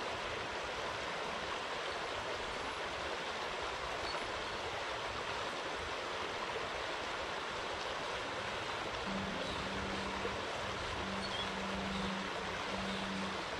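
Stream water rushing steadily over a shallow rocky riffle. A faint low hum comes and goes in the second half.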